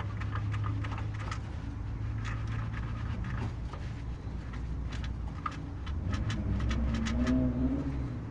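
Honda Fit engine running with irregular, sharp clicking knocks over a steady low hum: the knocking of a faulty air-conditioning compressor clutch.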